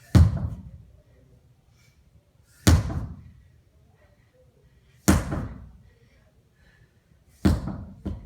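A sledgehammer striking a tire four times, one heavy thud about every two and a half seconds, the last followed by a smaller rebound thud.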